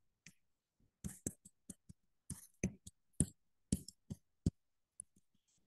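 Stylus tapping and clicking on a pen tablet or touchscreen while handwriting, a quick irregular run of sharp clicks with short gaps between.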